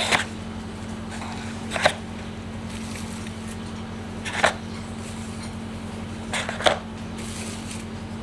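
Eggshells clicking against one another as fresh eggs are handled, five light clinks spaced over several seconds, over a steady low hum.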